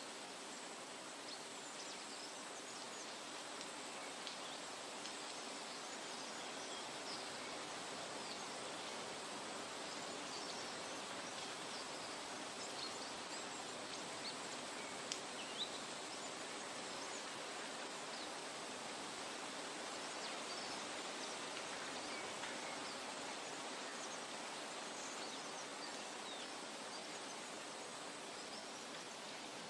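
Forest nature ambience: a steady, even rushing hiss with a thin high tone held throughout and many small, scattered high chirps. Two faint clicks about halfway through.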